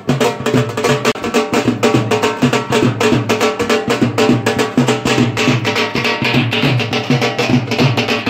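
Dhol drums beaten with sticks in a fast, even rhythm, together with melodic music.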